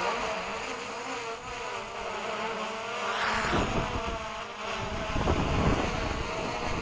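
DJI Mavic Pro drone's propellers buzzing steadily as it hovers and fights strong gusts. Wind buffets the microphone from about halfway through.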